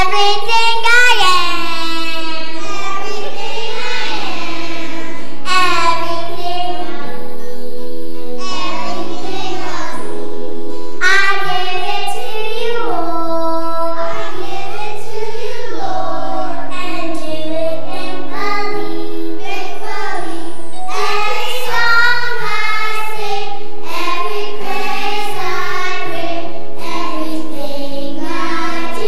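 A young girl sings a solo into a handheld microphone over an instrumental accompaniment. Her voice moves in sung phrases above steady low bass notes.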